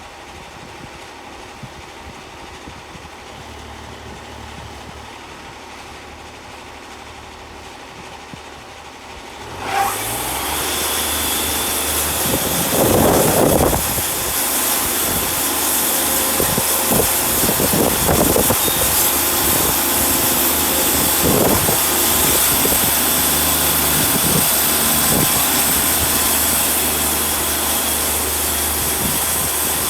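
Wood-Mizer portable band sawmill running: the engine idles steadily, then about ten seconds in it jumps abruptly to a much louder, steady run with a strong hiss as the band blade engages and saws.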